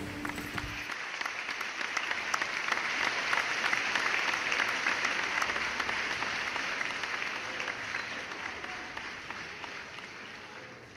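Audience applause: a dense patter of many clapping hands that builds over the first few seconds and then gradually fades away.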